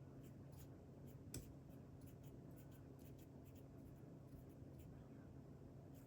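Near silence: a faint steady low hum with a few light clicks, the clearest about a second and a half in.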